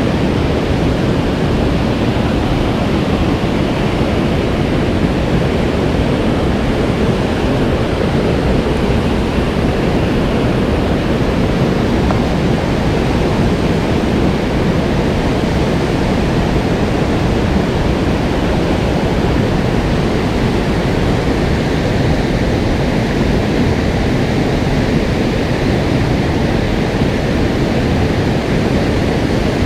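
Mountain stream water rushing over rocks: a loud, steady roar of running water.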